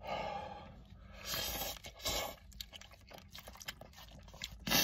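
A person slurping and chewing spicy instant ramen noodles: a few short, wet slurps in the first two seconds, then soft clicking chewing sounds.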